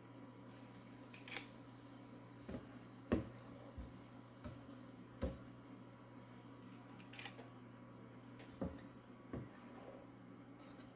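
Quiet, scattered knocks and clicks, about ten, over a steady low hum.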